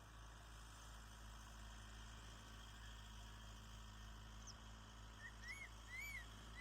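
Crested serpent eagle calling: a short series of whistled notes, each rising then falling, beginning about five seconds in and getting louder, over faint steady background hum.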